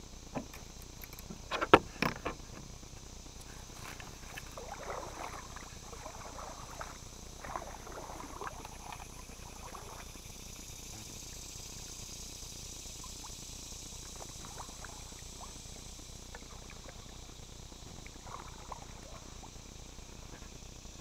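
A kayak being paddled along a brushy bank: a quick cluster of sharp knocks about two seconds in, then several seconds of rustling and water sounds as it works through the overhanging leaves. A steady high insect drone runs underneath.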